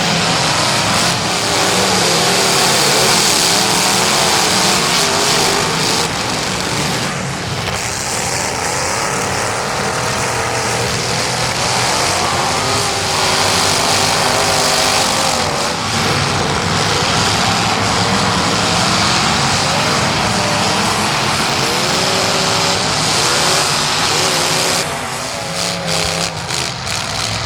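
Demolition derby cars racing, their engines revving up and down over a dense wash of track noise, with a run of sharp knocks near the end.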